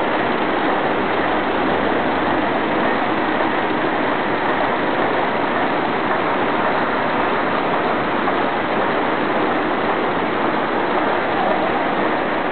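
Steady, dense machinery din of a running DVD packaging line: conveyors and packaging machines running together at a constant level.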